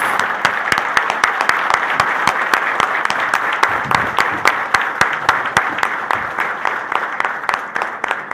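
Audience applauding: a dense patter of many hands clapping, with single claps standing out, slowly dying down near the end.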